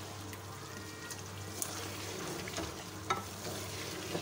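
Chicken and potato curry frying and sizzling in an aluminium pot while a wooden spoon stirs it, with a few soft scrapes of the spoon on the pot. The masala is being fried until the water from the added yogurt dries off.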